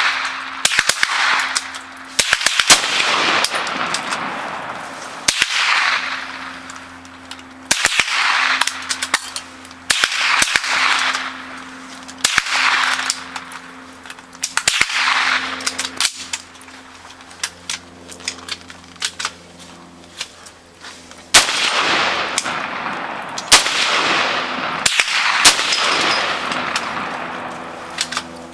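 Rifle gunfire on a firing line: about ten loud reports a couple of seconds apart, each trailing off in a long echo, with many fainter shots from other rifles in between.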